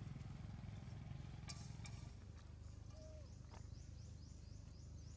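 Faint outdoor ambience: a steady low hum with a few soft clicks. From about two thirds of the way in comes a fast run of short, high, rising chirps, about five a second.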